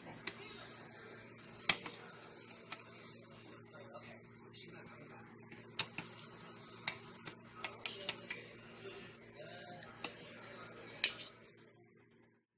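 Utensil clinking against a bowl as cubed chicken is mixed into its marinade: scattered light clicks and taps, the loudest about eleven seconds in, over a steady faint hum.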